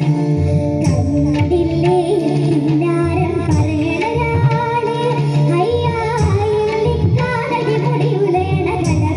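A song: a voice singing a wavering, ornamented melody over instrumental backing with a steady beat.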